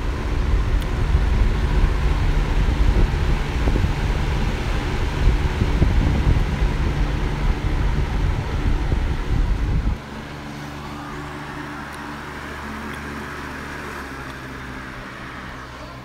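Lasko 3733 box fan running, its airflow buffeting the microphone held close to the grille as a loud low rumble. About ten seconds in the rumble cuts off abruptly, leaving the quieter steady hum of the fan.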